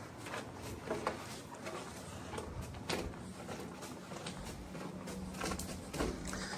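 Irregular crunching and scraping footsteps on a rough, rocky trail, with a faint steady low hum starting about three seconds in.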